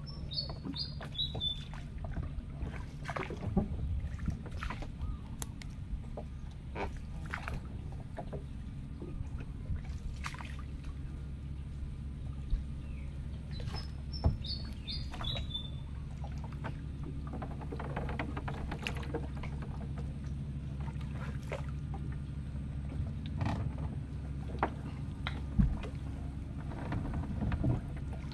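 A small boat being paddled: paddle strokes in the water with scattered knocks and clunks against the hull, over a steady low hum. A bird calls twice, each time a short falling run of four or five notes, near the start and about halfway through.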